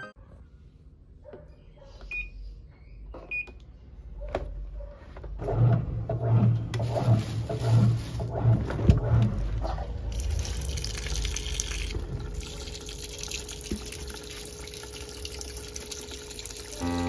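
Top-loading washing machine. First a few clicks and two short beeps, then a low hum and clatter from about five seconds in, then water pouring steadily into the drum from about ten seconds in as the wash fills.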